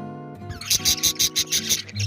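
Budgerigars giving a fast run of loud, high squawking calls, about six a second, starting about half a second in, over background acoustic guitar music.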